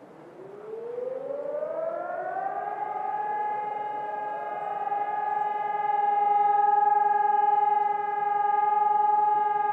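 HELIN electronic civil-defence sirens sounding a test alarm: a tone rises in pitch over about two seconds and then holds steady, with a second siren rising in a little later and joining the steady tone.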